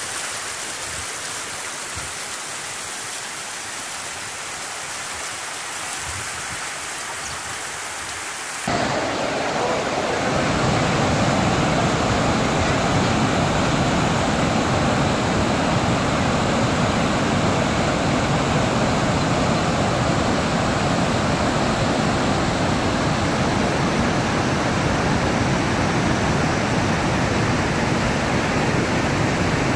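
Floodwater rushing in a swollen, muddy stream; about nine seconds in it cuts abruptly to the louder, deeper, steady rush of a large waterfall in flood.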